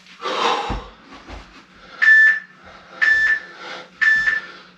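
Workout interval timer beeping: three short, high, evenly pitched beeps a second apart, a countdown to the next work interval. A short burst of noise with a low thump comes in the first second, before the beeps.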